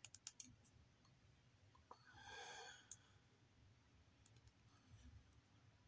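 Faint clicks of a plastic Zenkai Magine transforming toy's joints and parts as its legs are unfolded: a quick cluster at the start, another click near three seconds and a few light ticks later. A short exhale comes about two seconds in.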